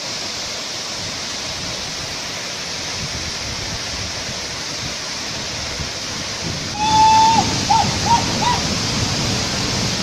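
Waterfall: a steady rush of heavily falling water. About seven seconds in the rush grows louder, and a few short high-pitched calls sound over it.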